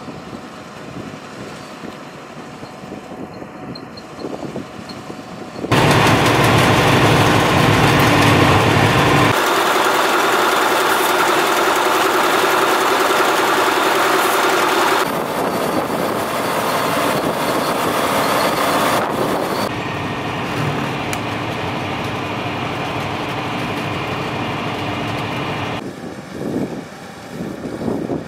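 Tractor engine and potato harvester machinery running, steady and mechanical. It is moderate at first, then abruptly much louder about six seconds in, and the sound shifts sharply a few more times.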